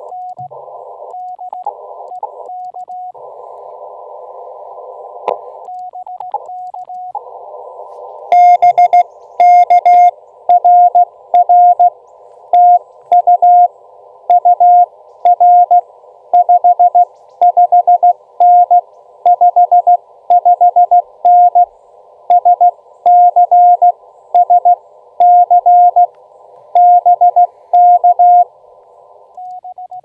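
CW radio receiver audio: hiss through a narrow filter with a faint Morse code signal, then from about eight seconds in, loud Morse code tones at a steady sending pace for about twenty seconds.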